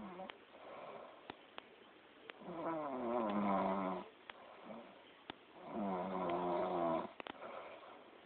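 A sleeping person snoring loudly: two long pitched snores, each over a second, about three seconds apart, with a few faint clicks between them.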